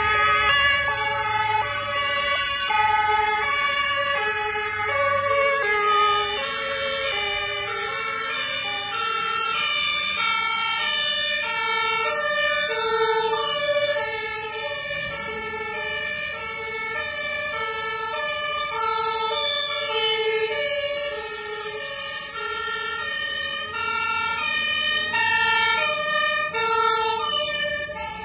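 German fire-service two-tone sirens (Martinshorn) sounding, stepping back and forth between two pitches. About six seconds in a second siren joins, out of step with the first, so the two patterns overlap as the vehicles come closer.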